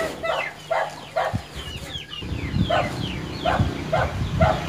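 Chickens clucking in short, falling calls, about two a second. About halfway through, a low motor-vehicle engine rumble starts underneath.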